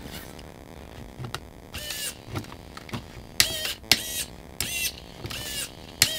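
Small servos of a Traxxas TRX-4 whirring in about six short bursts, as the remote diff-lock mechanism is shifted back and forth to check that it works with the case back on.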